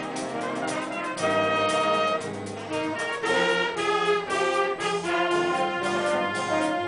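A youth jazz band's horn section of trumpets, trombones and saxophones playing together in held chords that change about every second.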